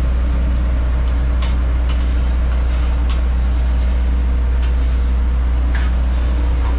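Steady loud, low machine drone of a food truck kitchen, with about five short metal clicks of spatulas striking the hibachi flat-top griddle as fried rice is worked.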